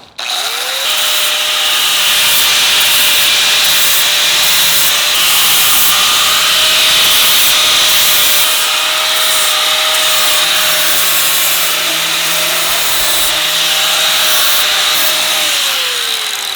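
Power grinder beveling the ends of metal frame plugs: the motor spins up just after the start, runs steadily with a loud grinding hiss against the metal, and winds down near the end.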